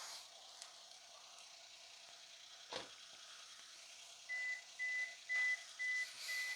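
Five short electronic beeps at one steady pitch, about two a second, starting about two-thirds of the way through, over a faint hiss. A single soft thump comes a little before the beeps.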